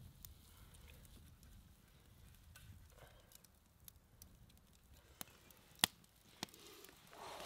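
Wood campfire in a steel fire ring crackling quietly, with scattered sharp pops, the loudest one about six seconds in.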